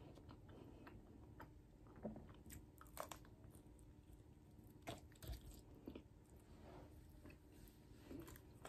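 A person quietly chewing food close to the microphone, with a few short crunches and clicks scattered through the chewing.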